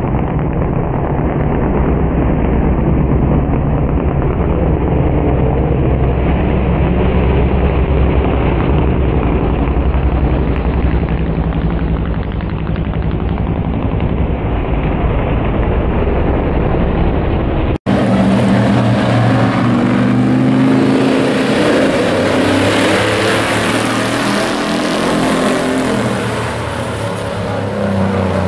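Several pickup-truck race engines running loud during a truck race. About two-thirds of the way in the sound cuts abruptly to a clearer, closer recording with a steadier, lower engine note.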